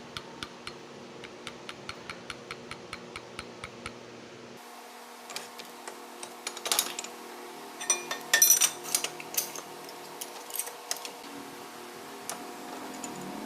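Workshop tool and engine-part sounds while a motorcycle engine is being taken apart: a run of evenly spaced clicks, about three to four a second, then, after a cut about a third of the way in, irregular metallic clinks and clatter, loudest about halfway through.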